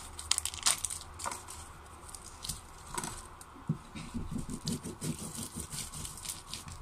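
Plastic wrap crinkling and crackling around a cured sausage, then a kitchen knife sawing slices off it: a quick series of soft strokes, about three or four a second, in the second half.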